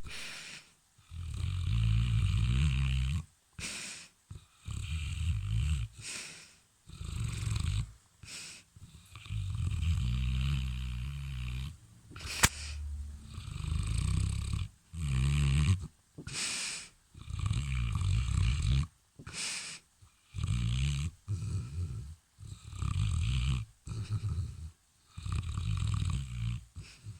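A sleeping dog snoring in loud, rhythmic breaths, one every couple of seconds, each a low rattling snore. A single sharp click sounds about twelve seconds in.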